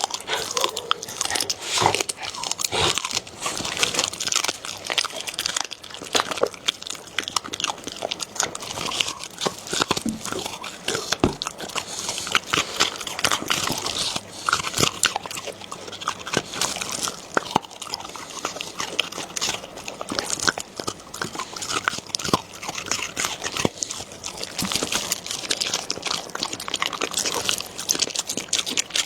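A dog biting and chewing food close to the microphone, with a dense, irregular run of crunchy clicks and crackles.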